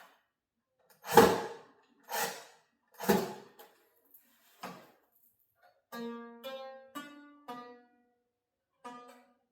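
Stringed instrument being tuned. Three loud percussive hits come about a second apart, then a fainter one; from about six seconds in, single strings are plucked one after another, each note ringing and fading.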